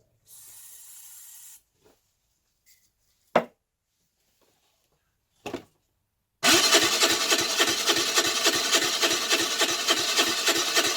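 Baotian Tanco 50cc four-stroke scooter engine being cranked by its starter from about six seconds in, a loud steady rhythmic churning that never catches: the engine is flooded, plugs coming out wet, which the owner puts down to a fouled carburettor. Before it, a short hiss near the start and two brief knocks.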